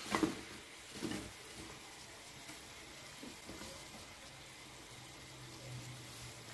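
Fried chicken pieces scraped off a spatula into a pan of simmering, thickened sauce, with two short knocks about a second apart near the start, then the sauce bubbling steadily as it is stirred.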